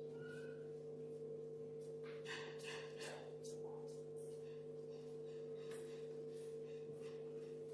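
Quiet room tone carrying a steady low electrical hum, typical of mains buzz from a PA system. Faint rustles and small clicks come about two to three seconds in.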